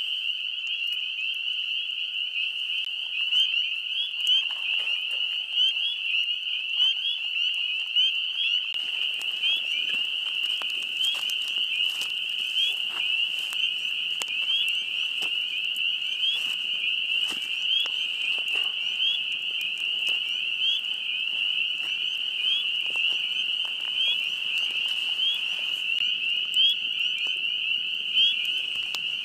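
A dense chorus of spring peepers: many frogs giving short, rising, high peeps over one another without a break. From about nine seconds in, a campfire crackles and pops beneath the chorus.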